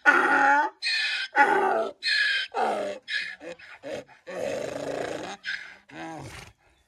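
A dog barking repeatedly, about two barks a second, with a longer rough bark about four and a half seconds in and a lower, falling note near the end.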